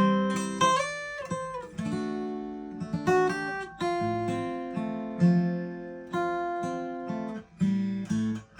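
Taylor 214 DLx acoustic guitar played, a run of chords struck and picked one after another, each ringing and decaying before the next. A few quick note changes come about a second in, and the last chord is left ringing near the end.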